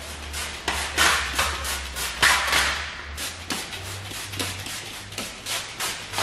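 Hand trigger spray bottle squirting slip solution onto the adhesive side of paint protection film, in quick repeated hissing spurts, about two a second.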